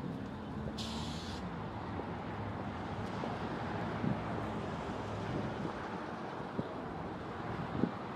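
Steady outdoor noise with wind on the microphone, a brief hiss about a second in and a few faint knocks.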